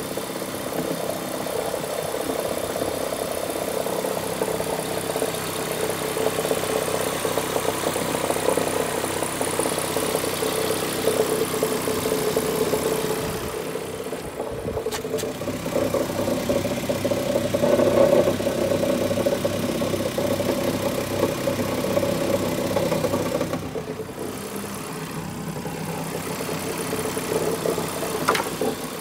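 BMW E46's M54 straight-six engine running, mostly at idle, with a knocking and rattling noise that the owner finds strange and has not diagnosed. The engine gets louder for a while around the middle and drops back briefly twice.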